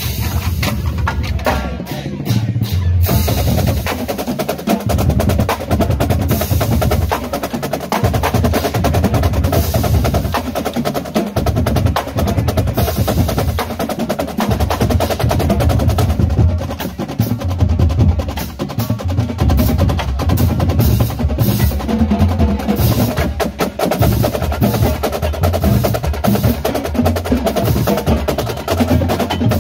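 Marching drumline playing a dense cadence on Yamaha marching snare drums, bass drums and cymbals. The first couple of seconds hold sparser sharp hits before the full line comes in.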